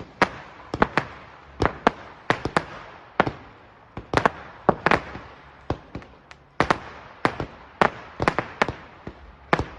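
Fireworks display: shells bursting in an irregular run of sharp bangs, about two to three a second and often in quick pairs, each trailing off in a short echo.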